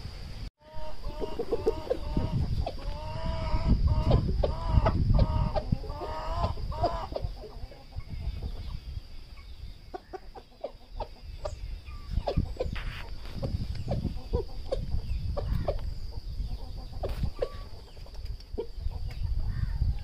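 Aseel rooster clucking in a run of short repeated calls over the first several seconds, then only scattered soft clicks.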